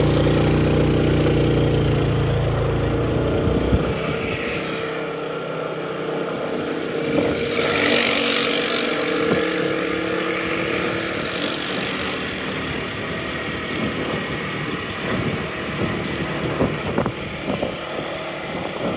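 Motorbike running at steady road speed, heard from the rider's seat, with wind and road noise. A heavy low rumble in the first four seconds drops away, and a brief rise in hiss comes about eight seconds in.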